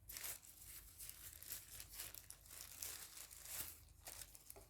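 Faint crinkling and rustling of plastic packaging being handled in short, irregular bursts as the dash cam is unwrapped.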